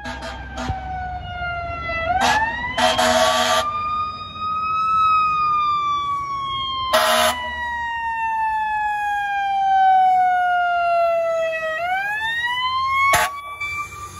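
Fire rescue truck's siren passing close: a wail that winds up about two seconds in, falls slowly over several seconds, and winds up again near the end. Short loud horn blasts sound about two, three, seven and thirteen seconds in, the one at three seconds lasting nearly a second.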